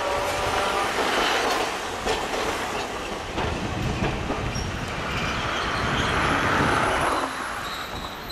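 Hiroden (Hiroshima Electric Railway) tram car 353 running along street track. Its motor whine rises in pitch and fades about a second in, then the wheels clack over the rail joints with the steady rumble of the car. A rushing noise swells toward the end and cuts off sharply about seven seconds in.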